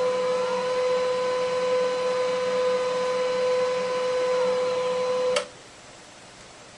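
Desktop printer running: a steady motor whine that stops abruptly with a click about five seconds in.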